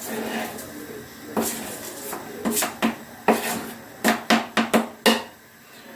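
Irregular sharp knocks and clacks of kitchen utensils against cookware, coming quicker in the second half, as chopped onion is tipped into a soup pot.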